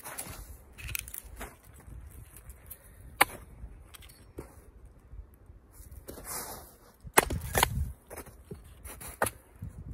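Axe striking a log stood on a chopping stump to split it. There are several sharp wooden knocks, about five in all, and the loudest is a close pair about seven seconds in.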